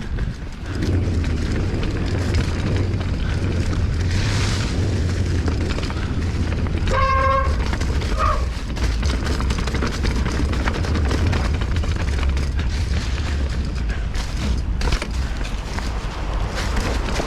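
Mountain bike riding a trail: steady low rumble of wind buffeting the rider's microphone and tyres rolling over the ground, with a short high squeal about seven seconds in.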